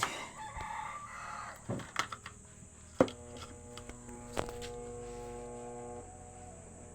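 Konzert AV-602B amplifier being tested after repair of its hum: a few sharp clicks, then a steady buzzing tone with several pitches from the speaker for about three seconds before it drops away.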